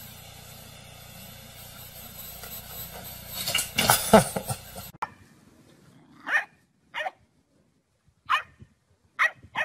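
Dog barking: a loud burst about four seconds in, then single short barks spaced about a second apart.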